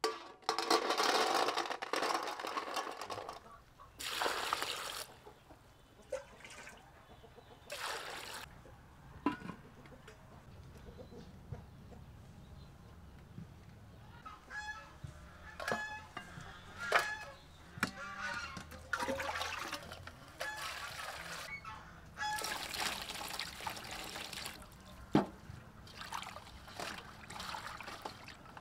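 Snails tipped from a metal bowl into a steel pot, their shells rattling against the metal, then further handling noises and water splashing near the end. Short honking bird calls come through in the middle.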